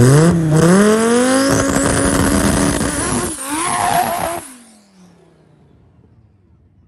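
Drag-race cars launching hard from the start line, engines climbing in pitch through the gears. About four and a half seconds in, the sound drops off sharply to a faint background.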